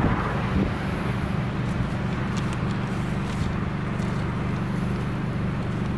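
A vehicle engine idling steadily, giving a low, even rumble, with a few faint small clicks.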